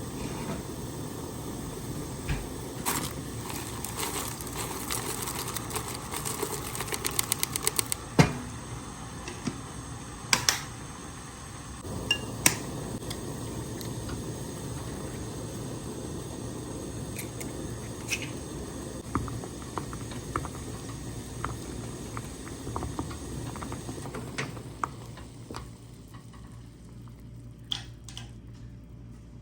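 Kitchen sounds: dishes and cutlery clinking and knocking over a steady hiss, with a quick run of ticks about eight seconds in.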